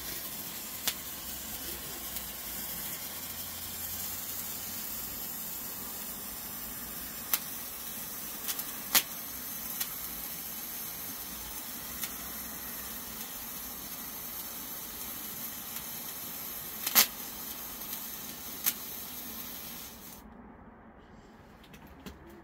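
Handheld colour sparkler fizzing with a steady hiss, broken by a few sharp cracks; the hiss stops suddenly as it burns out near the end.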